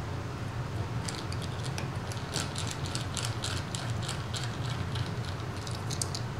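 Precision screwdriver driving small screws into a smartphone's main board: a run of light, quick clicks and ticks, over a steady low hum.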